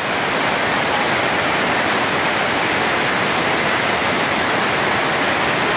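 Mountain river whitewater rushing over boulders: a steady, unbroken rush of water.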